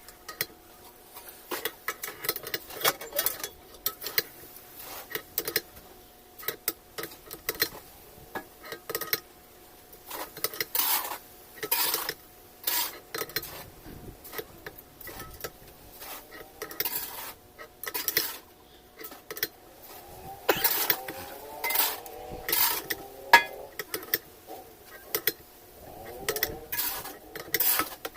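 Metal parts and tools clinking, knocking and scraping against each other while a top-loading washing machine's drive mechanism is worked on by hand, with many separate sharp knocks and a few short grating slides.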